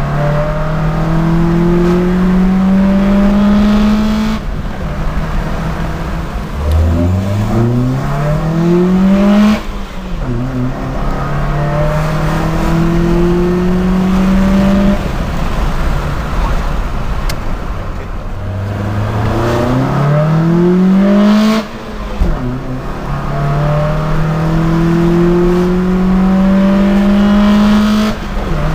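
2008 Mitsubishi Lancer ES's 2.0-litre 4B11 four-cylinder engine breathing through an Injen cold-air intake, heard from inside the cabin under hard acceleration. The engine note climbs in pitch toward about 5,000 rpm and drops sharply at each gear change, several pulls in a row, some climbing slowly and some quickly.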